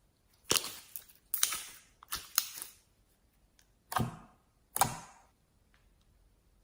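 Slime being handled, giving about six sharp pops or crackles, each dying away within about half a second. Four come close together in the first half and two more follow about a second apart.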